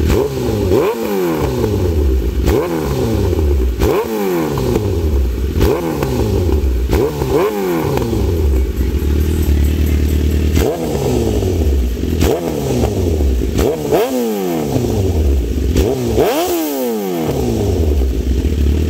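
2008 Suzuki GSX-R1000's inline-four engine, fitted with racing coil packs, running through an aftermarket muffler and blipped repeatedly: about ten quick revs, each rising sharply and falling back to idle.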